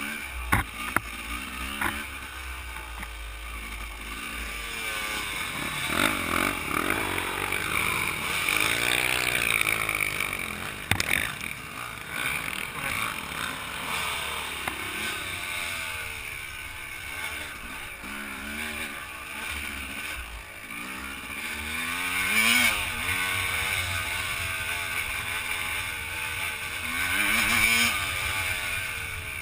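Dirt bike engine revving up and down over and over as it is ridden along a rough trail, with a rushing noise over it. There are a few sharp knocks from the bike near the start and once about 11 seconds in.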